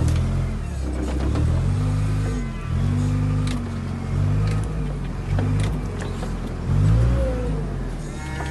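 An engine revving up and down again and again, its pitch rising and falling about once a second.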